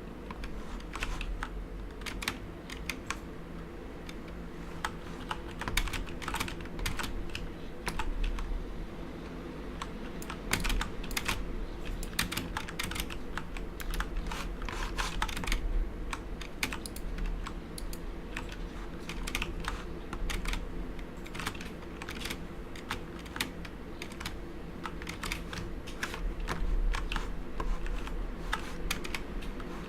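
Typing on a Corsair K70 mechanical keyboard with Cherry MX Brown switches damped by 40A-R rubber O-rings: a steady, irregular stream of keystroke clicks, with a low steady hum underneath.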